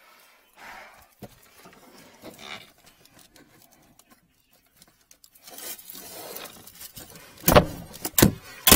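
Coiled spring drain cable being worked and drawn back out of a floor drain pipe, with faint scraping and rustling, then three sharp knocks near the end.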